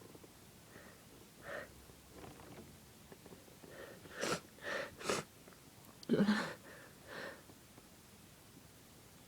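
Sharp nasal sniffs and breaths from a nose irritated by sniffed ground pepper: three quick ones about four seconds in, then a louder, voiced sneeze-like burst about six seconds in, and a smaller one after it.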